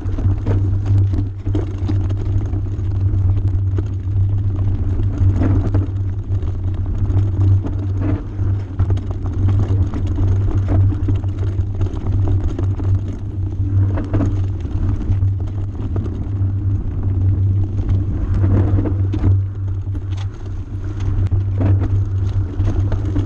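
Riding noise picked up by a handlebar-mounted camera on a mountain bike descending a rocky gravel trail: a steady loud low rumble of wind and trail vibration, with frequent knocks and rattles as the tyres hit stones.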